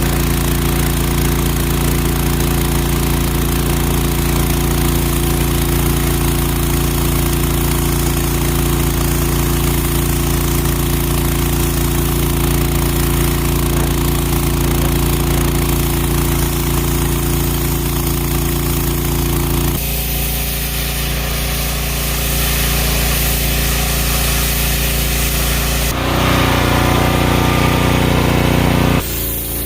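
Stihl RB800 gas pressure washer with its Kohler engine running at a steady pitch under the hiss of the water spray. The sound changes abruptly about two-thirds of the way through and again near the end.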